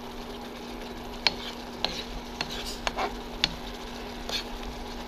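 Metal spoon stirring thick mala rice porridge (jok) with dried squid in a nonstick wok, clinking against the pan about seven times at uneven intervals, over a faint steady hiss and a low steady hum.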